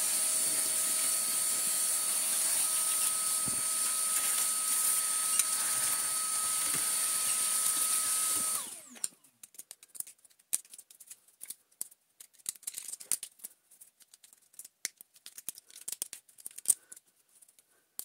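A small electric vacuum cleaner runs steadily with a high whine for about nine seconds while dust is cleared from the stripped-down motor parts. It is then switched off and winds down, leaving light clicks and taps of metal parts and a screwdriver being handled.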